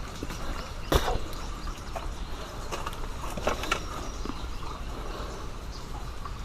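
Footsteps crunching on rocky, debris-strewn ground, with scattered clicks and knocks, the sharpest about a second in and a few more around three and a half seconds.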